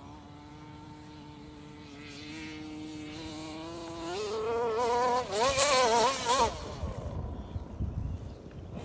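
Losi RC car's engine buzzing, the pitch rising about four seconds in, then revving up and down at its loudest before dropping away about six and a half seconds in.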